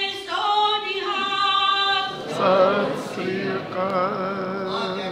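Several voices singing a Sikh devotional hymn together in long, drawn-out notes, with a rising glide near the start and wavering pitch in the second half.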